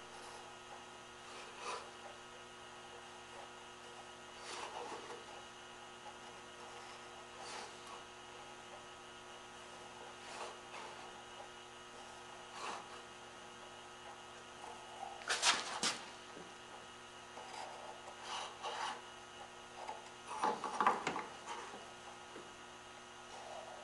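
Steady electrical hum, with short scraping strokes and light knocks scattered through it: a small square being set against a board and marking lines drawn along it. The loudest is a quick pair of knocks a little past the middle.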